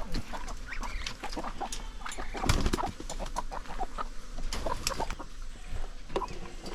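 Chickens clucking in short, scattered calls, mixed with small taps and a louder knock about two and a half seconds in.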